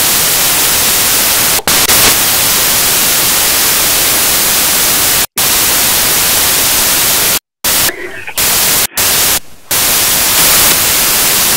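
Loud, steady static hiss covering the whole sound track, cut by several sudden silent dropouts of a fraction of a second each. It is a broken-up recording or upload glitch in place of the lecture's voice.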